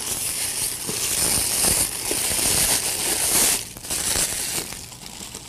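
Metallic twisted glitz ribbon crinkling and rustling as a handful of its strands is gathered up and squeezed together; it quiets down after about three and a half seconds.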